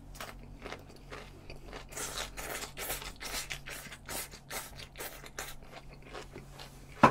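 Close-miked eating of spicy stir-fried webfoot octopus with carrot and cabbage: a slurp off the chopsticks, then wet, crunchy chewing in quick strokes, several a second. A single loud sharp knock near the end.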